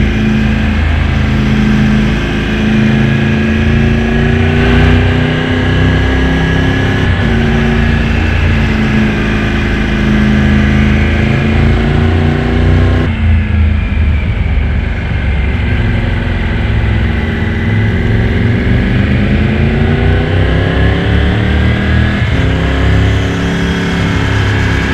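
Motorcycle engine pulling along the road. Its note holds steady, drops sharply about halfway through as the throttle closes, then climbs steadily as it accelerates, with a gear change near the end.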